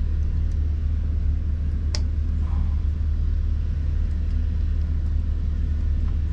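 Steady low machinery drone, with one sharp click about two seconds in as a wire connector is pushed back onto the engine's cooling-water temperature transmitter.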